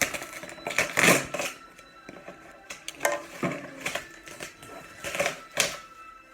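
A shipping box being opened by hand: irregular rustling, crackling and tearing of cardboard and packing, loudest about a second in and again near the middle and end.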